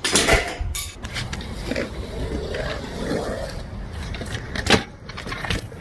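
BMX bike clattering over a steady low rumble, with sharp knocks right at the start, about a second in, and a louder one near five seconds in.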